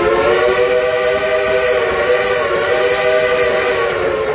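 Steam whistle of a coal-fired 2-8-2 Mikado steam locomotive blowing one long, loud, chord-like blast of several notes at once, its pitch sagging slightly midway.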